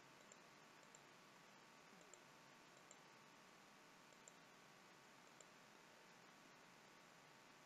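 Faint computer mouse clicks, about six scattered single clicks, over a low steady hiss.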